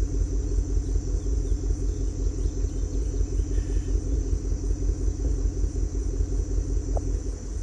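Vehicle engine idling: a low, evenly pulsing sound.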